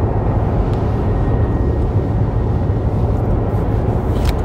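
Steady road and engine rumble heard inside a moving car's cabin, with a short click near the end.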